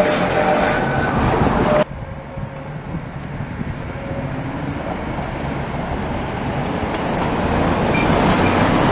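Electric rack-railway railcar of the Budapest cog-wheel line running past, its motors and gearing giving a steady hum with a few held tones; about two seconds in the sound cuts off abruptly, and a railcar is then heard approaching, growing steadily louder as it nears.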